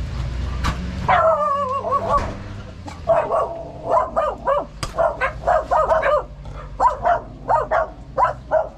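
A dog whining about a second in, then barking in a run of short, repeated barks, about two a second.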